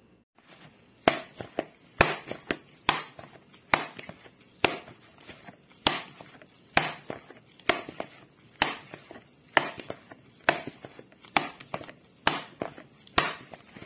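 Bread dough being kneaded by hand in a plastic bowl: sharp knocks of the fist and dough against the bowl, about one a second, with lighter knocks between, starting about a second in.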